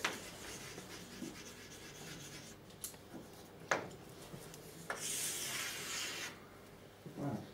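Chalk scratching across a blackboard for a little over a second, about five seconds in, after a few faint clicks.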